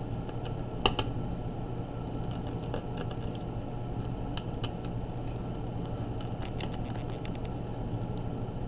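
Light scattered plastic clicks and taps as a laptop battery is worked loose and lifted out of its bay in the open chassis, with one sharper click about a second in.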